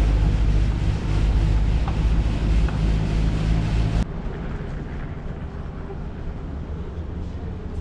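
City street ambience dominated by a vehicle's low, steady engine rumble. About four seconds in it cuts off abruptly to quieter, even background noise.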